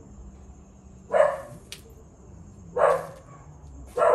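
A dog barking: three short barks, about a second and a half apart.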